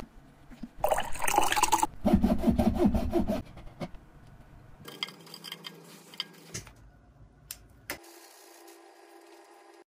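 A run of sharp metal taps as a mallet drives a steel coconut opener into a young coconut, followed by a louder liquid sound. A metal spoon then scrapes soft flesh from inside the coconut shell, with quieter clicks and handling noises after it.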